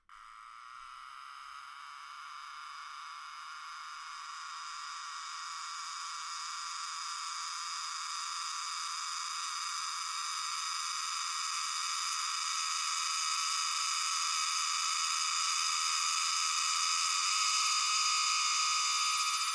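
Platylomia pieli cicada (take-ōtsukutsuku) singing: one continuous, high metallic buzz like metal being ground, growing steadily louder.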